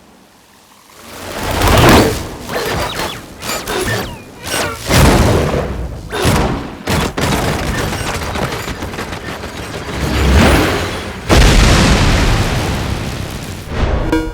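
Sound-designed lightning and thunder effects for an anime fight: layered booms and rumbling blasts that swell and crash several times, with a sudden heavy hit about eleven seconds in, over a music bed.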